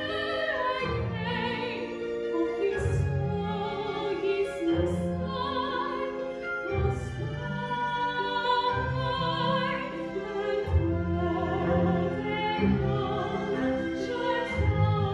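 A woman singing a solo from a stage musical in an operatic style, her long held notes wavering with vibrato, over a sustained instrumental accompaniment.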